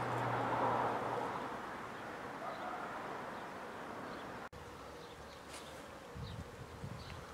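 Insects buzzing in summer vegetation. A rushing noise is loudest at the start and fades over the first few seconds, and a few faint short chirps come near the end.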